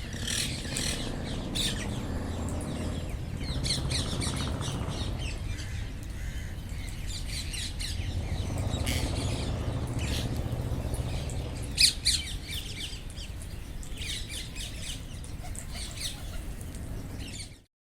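Indian ringneck parrots calling in clusters of short, high squawks and chirps over a low steady rumble, with one louder call about twelve seconds in. The sound cuts off suddenly shortly before the end.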